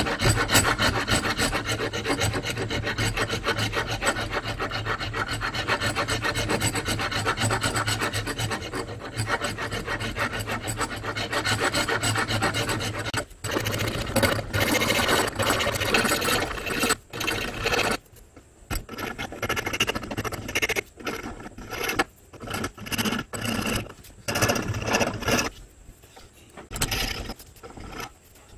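A flat hand file scraping back and forth over the ebony knife handle to shape it. The strokes are rapid and continuous for about the first half, then after a short break they come in shorter runs with pauses between them.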